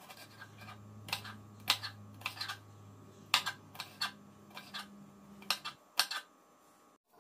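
Kitchen knife slicing green chillies on a wooden chopping board: a series of sharp, irregular taps, about a dozen, as each slice cuts through and meets the board.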